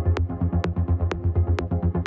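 Electronic trance-style background music with a steady beat: a sharp hit about twice a second over a fast pulsing bass line.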